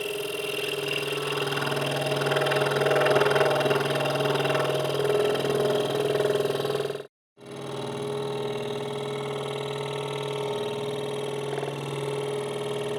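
Hegner Multicut 2S scroll saw running, its blade reciprocating as it saws through thin wood: a steady motor hum with a rougher cutting sound over it, strongest in the first half. The sound breaks off completely for a moment just past halfway, then the saw runs on steadily.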